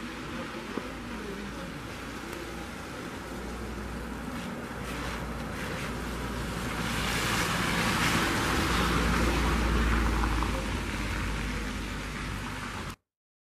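A car driving past on a slushy, snow-covered street, its engine and the tyre noise on wet snow swelling as it passes, over a steady low rumble of wind on the microphone. The sound cuts off suddenly near the end.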